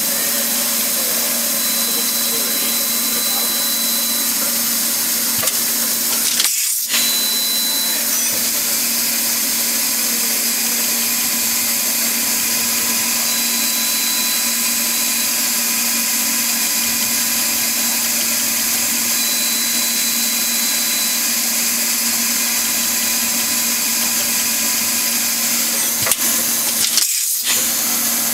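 Chiron FZ08S 4-axis vertical machining center running: a steady mechanical whir with a high hiss and a few steady tones. The sound cuts out briefly twice, about a quarter of the way in and near the end.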